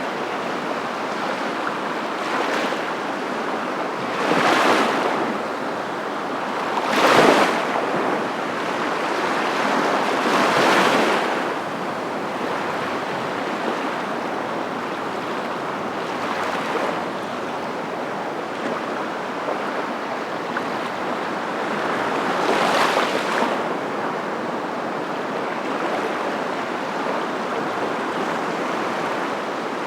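Waves breaking: a steady rush of surf that swells and fades several times, the loudest swell about a quarter of the way in.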